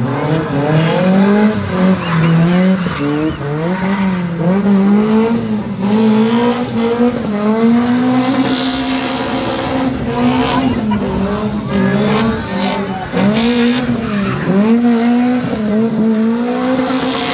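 Nissan 1400 Champ pickup spinning: the engine is held at high revs that rise and fall over and over as the rear tyres squeal and smoke against the tarmac.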